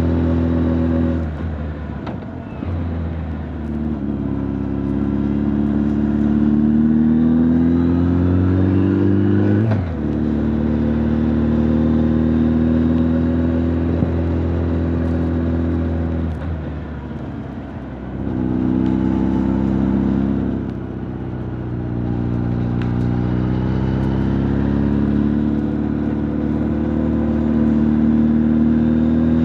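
Honda CB1300 Super Bol d'Or's inline-four engine and exhaust under way, heard from the rider's back with no wind noise. The engine note climbs steadily in pitch under acceleration and drops sharply at a gear change about ten seconds in. It then eases off twice and climbs again near the end.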